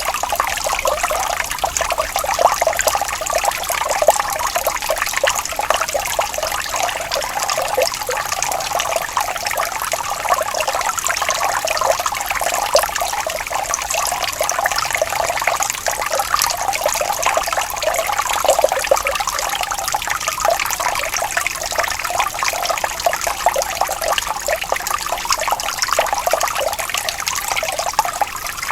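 Water running and trickling steadily, a continuous dense bubbling and splashing with a thin, bright tone and almost no low end.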